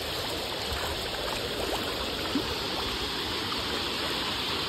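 Shallow creek water rushing steadily over rock in small rapids, with one brief tap about halfway through.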